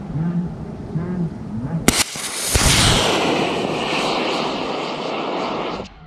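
High-power amateur rocket motor igniting about two seconds in with a sharp crack, then a loud hissing roar as the rocket leaves the pad. The roar weakens slowly and stops abruptly near the end.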